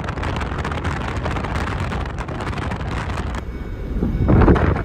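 Camper van on the move, heard from inside the cab: steady road and engine rumble with wind noise on the microphone. The noise changes abruptly a little over three seconds in, and a loud low gust of wind buffets the microphone about four seconds in.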